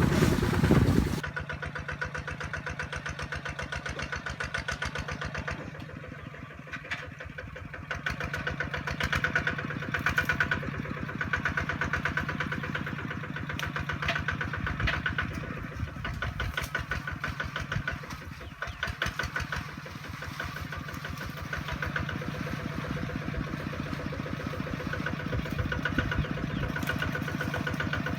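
Kubota RT155 single-cylinder diesel engine running with a steady, even chug. It is louder for about the first second, then settles to a constant beat.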